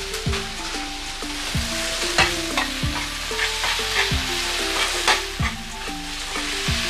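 Food frying in oil in a frying pan, a steady sizzle from freshly added eggs and chopped onions, while a metal spatula stirs through it and clicks and scrapes against the pan several times.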